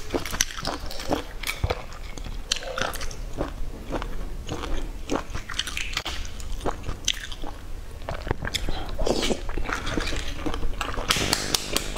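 Eggshells of boiled eggs cracking and crackling as they are peeled by hand, many small sharp cracks in quick, irregular succession.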